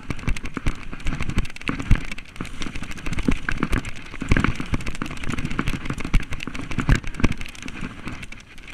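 Mountain bike descending a rough dirt trail at speed: a dense run of rattles, knocks and heavy thuds as the tyres and suspension hit bumps and the frame clatters, picked up by a camera mounted on the rider. It eases briefly near the end.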